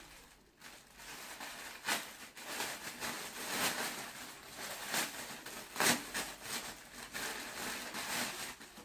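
Plastic packaging crinkling and rustling as it is handled, with irregular sharp crackles, the loudest about two seconds in and about six seconds in.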